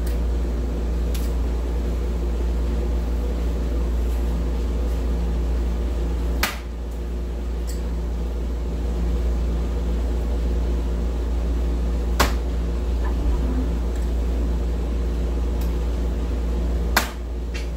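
Three sharp clicks of soft-tip darts striking an electronic dartboard, about five seconds apart, over a steady background hum.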